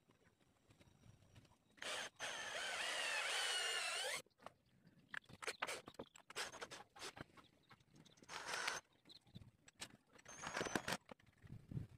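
Hand tools working on an old handsaw's wooden handle: a squeal that wavers in pitch for about two seconds, like a stiff metal fitting being turned, then scattered clicks and clinks of metal tools.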